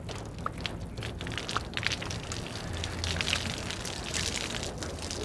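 Water pattering and splashing out of a soaked towel as it is twisted and wrung out, falling onto the stone paving as a patter of small drops and spatters that is busiest in the middle.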